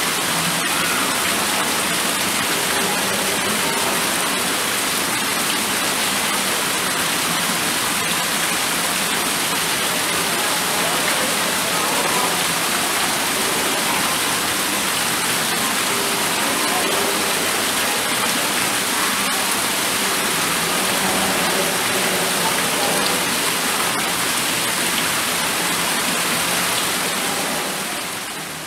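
Steady rushing of falling water, an even hiss that eases off slightly at the very end.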